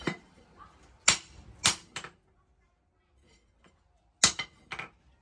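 Hand hammer striking a steel bar on a steel post anvil, forging the hooked end of a crowbar: four sharp blows in the first two seconds, a pause, then two more near the end.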